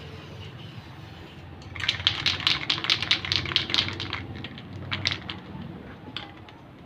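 Aerosol spray paint can being shaken, its mixing ball rattling in quick clacks, about five or six a second, for a couple of seconds, with a few more rattles a second later.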